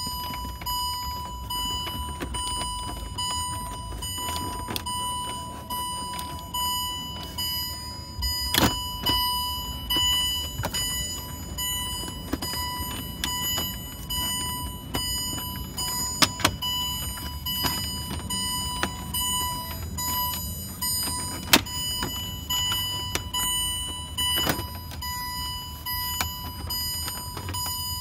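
Plastic instrument cluster and dashboard trim of a 2007 Range Rover Sport being handled and worked loose by hand: scattered clicks and knocks, a few sharper ones near the middle. A steady high-pitched tone and a low hum run underneath.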